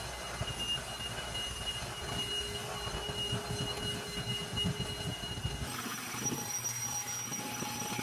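Holife handheld cordless vacuum running, a steady high whine over a rushing hiss, as it sucks dry oatmeal flakes off a carpet. About six seconds in, the whine jumps suddenly to a higher pitch.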